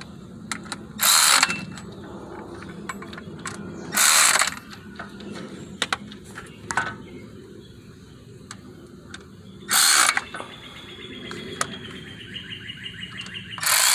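Hand ratchet wrench tightening down the bolts of a newly fitted water pump: four short, loud rasps of the ratchet, and near the end a run of quick, even pawl clicks.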